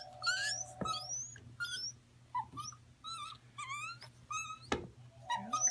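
A gibbon giving a quick series of short, high squeaks, many of them rising in pitch, as it is held for a neck adjustment. Two sharp clicks sound among them, one about a second in and one near the end.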